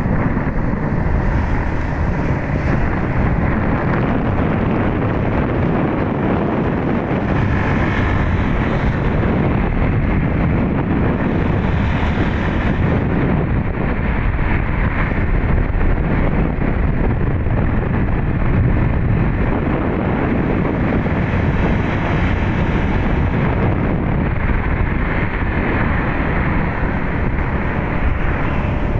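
Steady wind noise buffeting the microphone over the running engine and road noise of a motorcycle being ridden.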